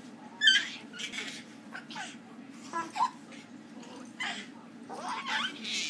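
Baby squealing and babbling excitedly while being bounced up and down in the air, in short high wavering bursts; the loudest is a sharp squeal about half a second in.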